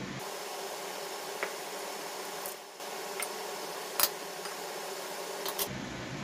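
Steady hiss with a few short, light clicks, the loudest about four seconds in: small glass bowls being handled while eggs are tipped into a glass mixing bowl of flour.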